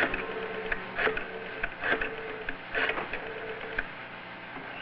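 Rotary telephone being dialled: the dial is wound and released several times, about once a second, each return a short burst of ratcheting clicks, over a faint steady hum.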